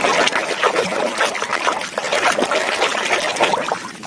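Running water splashing over a plastic toy as mud is rinsed off it, with many quick splashes, easing off near the end.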